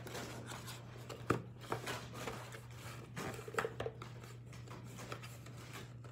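Faint handling noises: a few light clicks and taps, loosely spaced in the first four seconds, over a steady low electrical-sounding hum.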